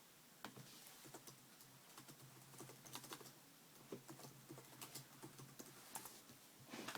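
Faint, irregular typing on a laptop keyboard, a few light key clicks a second.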